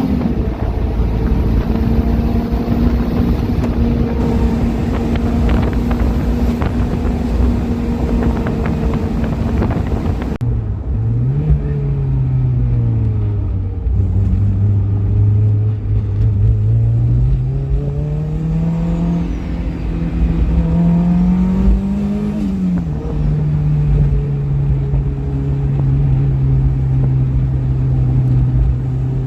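Turbocharged Honda S2000's four-cylinder engine running at a steady high pitch, then, after an abrupt change about ten seconds in, at a lower pitch that climbs slowly as it revs up, drops sharply, and holds steady.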